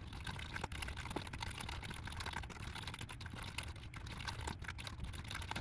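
Fast, continuous typing on a computer keyboard: a dense run of key clicks that stops abruptly near the end.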